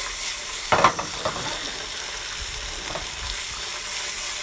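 Strips of steak sizzling in a hot nonstick frying pan on a gas burner as the pan is shaken to toss the meat, with a brief clatter of the pan about a second in.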